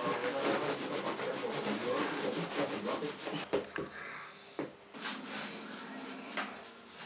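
Rubbing strokes over the surface of a primed wooden painting panel, quick and uneven, first firm, then quieter; about five seconds in they turn lighter and hissier.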